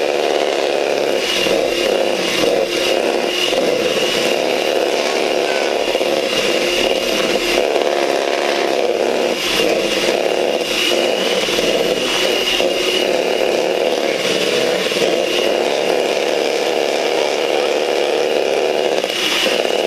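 Electric hand mixer running steadily at speed, its beaters mixing cookie dough in a plastic bowl, with a thin high whine over the motor and scattered knocks of the beaters against the bowl.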